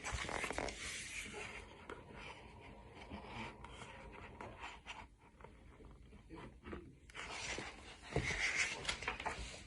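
Quiet handling noise from a picture book: soft rustles and scattered light clicks, a little louder near the end.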